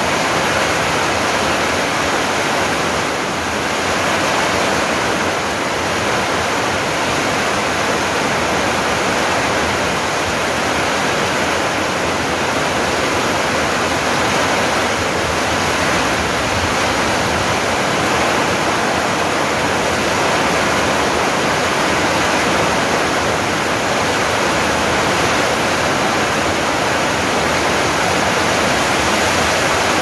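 Heavy rain falling steadily on trees and garden plants, an even hiss with no let-up.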